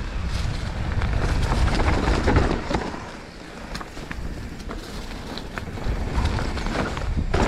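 Mountain bike rolling along a dry dirt woodland trail: wind rumbling over the camera's microphone, tyres on the dirt and scattered clicks and rattles from the bike, easing off briefly about three seconds in.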